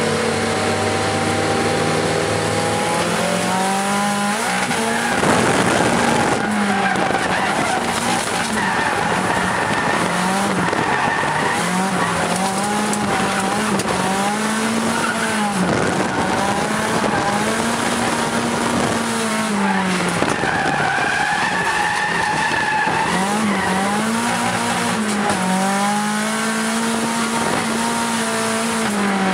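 Onboard, inside the cabin of an AE86 Trueno drift car: its Nissan SR20DET turbocharged four-cylinder is driven hard, the revs swinging up and down every second or two through the drifts. Tyres squeal throughout, with a louder burst of tyre noise about five seconds in.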